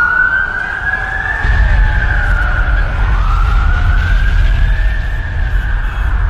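Emergency siren wailing, its pitch slowly rising and falling. A deep rumble comes in about a second and a half in and carries on under it.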